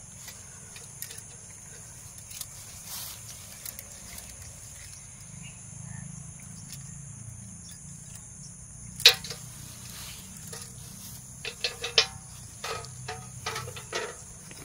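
Insects chirring in a steady high-pitched drone. A sharp metallic clink comes about nine seconds in and a few lighter knocks near the end, as a small brass pot and a brass bucket are handled.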